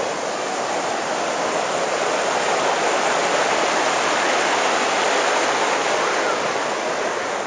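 Mountain stream rushing over rocks in white-water rapids: a steady rush of water that grows louder through the middle and eases a little near the end.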